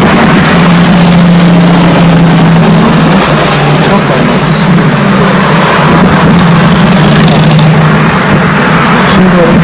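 Loud, steady road traffic noise with a vehicle engine hum.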